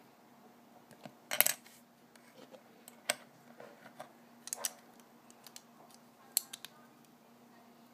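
Plastic LEGO pieces clicking and clattering as they are handled and fitted together on a wooden tabletop: a few sharp, separate clicks, the loudest about a second and a half in.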